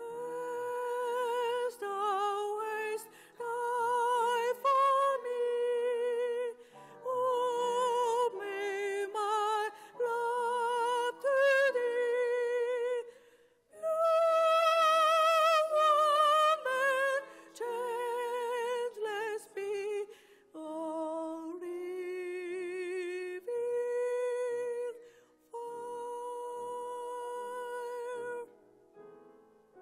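A solo voice singing a slow melody with strong vibrato, in long held notes and phrases broken by short pauses.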